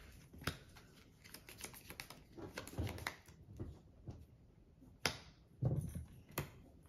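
Faint, scattered clicks and taps of trading cards being handled, set down and slid on a cloth playmat, with a sharper click about five seconds in.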